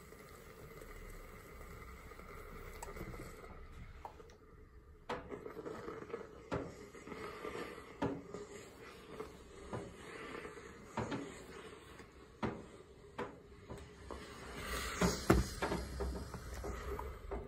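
Irregular sharp clicks and knocks, about one every second, as a T-fal handheld garment steamer is worked over a coat, with the loudest knock near the end.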